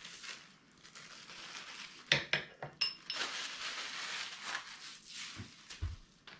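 Packaging being handled while printer parts are unwrapped: rustling, a few sharp clicks, and a brief ringing clink about three seconds in.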